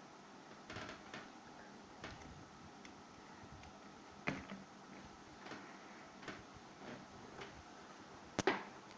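Scattered light clicks and knocks of pens being handled and dropped into a paper pen holder, with a sharper double knock near the end.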